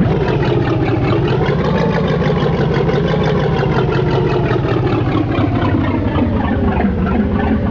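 An engine running at a steady speed, its pitch wavering only slightly.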